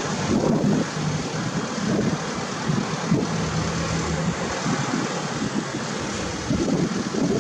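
Engine of a bucket truck running, with a low steady hum that comes and goes, under wind buffeting the microphone in irregular gusts.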